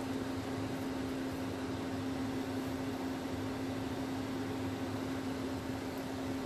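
Steady appliance hum, one strong low tone over an even fan-like hiss, from the kitchen stove area where a pot sits on a lit induction hob.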